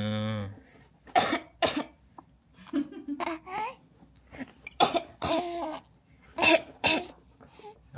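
A woman coughing deliberately, in short pairs, three times over, to make a baby laugh. Between the coughs the infant gives short cooing sounds.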